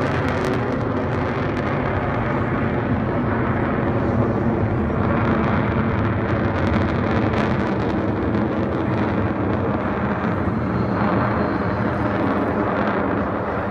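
Aircraft engines, loud and steady: a rushing noise with a low hum of steady tones beneath it.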